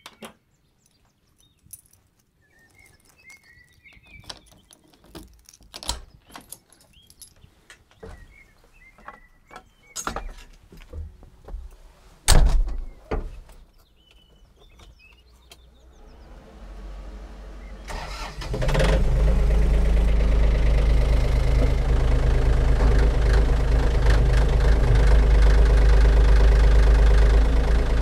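Scattered knocks and clatter from a tractor cab being climbed into, with one loud thump about twelve seconds in. The tractor's engine then cranks, catches about eighteen seconds in and runs steadily.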